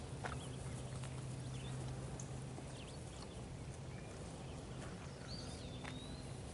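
Horses eating hay off the ground: scattered soft crunches and rustles as they pull and chew. A bird chirps about five seconds in, over a low hum.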